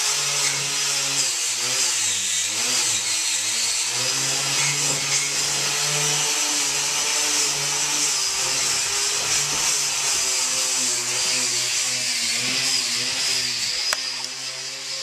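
Electric power sander running hard against the bus floor, a loud steady grinding hiss over a motor hum whose pitch wavers as the tool is pressed into the surface and eased off.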